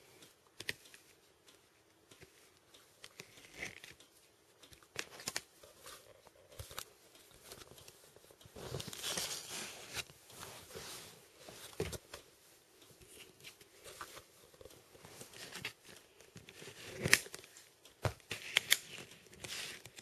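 Packaging being torn open and crinkled by hand, with scattered clicks and taps of handling. A longer stretch of tearing comes about halfway through, and a few sharp clicks come near the end.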